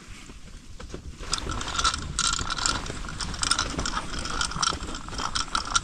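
Small ice-fishing reel clicking rapidly as its spool turns, which starts about a second in. The line is being let down through the ice hole to lower a groundbait feeder.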